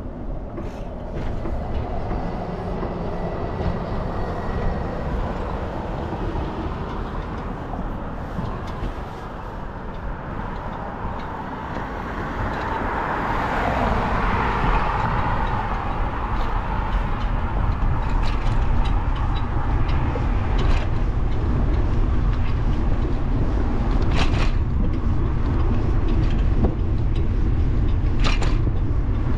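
Wind buffeting a bicycle-mounted camera's microphone while riding along a city street, with steady low road rumble. A broad swell of traffic noise rises and fades around the middle, and a few sharp knocks come near the end.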